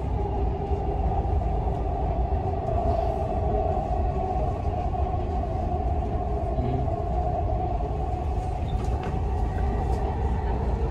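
Dubai Metro train running at speed, heard from inside the carriage: a steady rumble of wheels and running gear with a constant hum.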